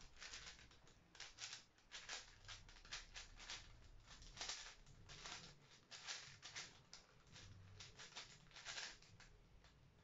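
A 5x5 speed cube being turned rapidly by hand: a soft, irregular run of plastic clicks and clacks, several a second, as its layers snap through turns.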